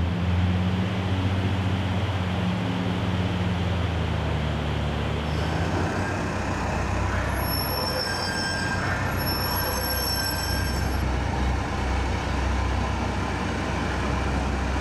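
Amphibious Combat Vehicle's engine running with a steady low drone, giving way after about five seconds to a loud, even wash of vehicle and machinery noise. High-pitched metallic squeals run through it from about seven to eleven seconds in.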